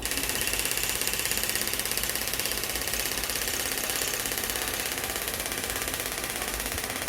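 Scalp micropigmentation tattoo machine running, a rapid, even needle buzz that starts abruptly and holds steady.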